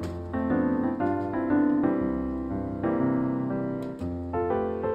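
Solo piano music playing a light melody of separate notes.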